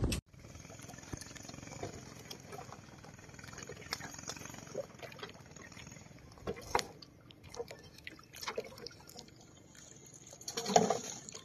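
Water splashing and dripping as wet mesh fishing nets are hauled out of the lake over the side of a wooden boat, with scattered small splashes and clicks and a louder splash near the end.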